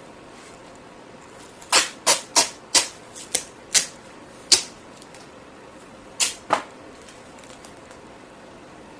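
A quick run of short, sharp rips of tape being pulled off the roll and torn: seven in about three seconds, then two more close together a couple of seconds later.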